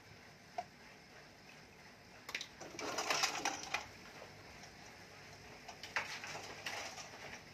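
Clatter and rustling of objects being handled and moved about on a cluttered workbench, a busy run of clicks and knocks between about two and four seconds in and a single knock about six seconds in, over a faint steady low hum.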